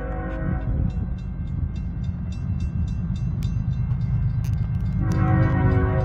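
CSX locomotive air horn blowing, cutting off under a second in, then sounding again about five seconds in. Between the blasts, a steady low rumble of the train with a run of light clicks.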